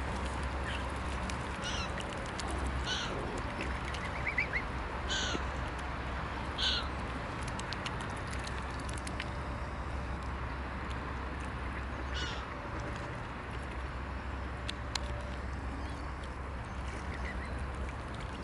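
Short, high waterbird calls, about half a dozen, mostly in the first seven seconds and one more later, over a steady low rumble. Faint clicks and small splashes come from swan bills feeding at the water's surface.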